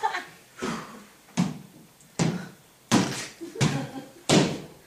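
Six evenly spaced thumps, about one every three-quarters of a second.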